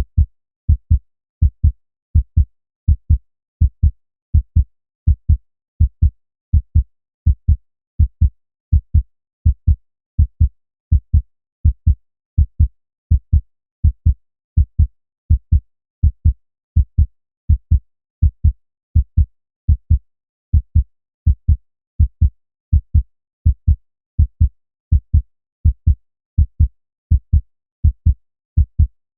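Human heartbeat: a steady double thump (lub-dub) repeating at an even pace, a little over once a second, all low in pitch.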